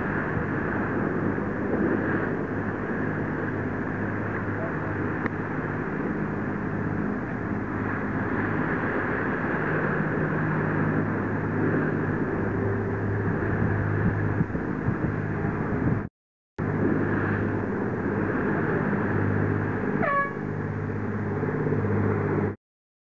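An engine running steadily with a low hum. The sound cuts out twice briefly near the end.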